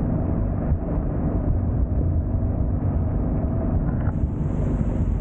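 Boat engine running steadily while motoring under way, an even low hum with no change in speed.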